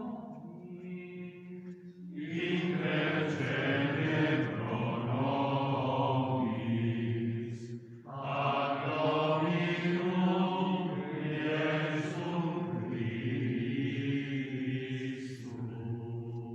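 Voices chanting a Latin prayer together in long sustained phrases, with short breaks about two and eight seconds in.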